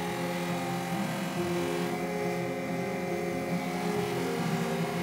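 An 8-inch slow-speed bench grinder running steadily with a buffing wheel fitted, giving a continuous motor hum while a steel cleaver blade is polished against the wheel.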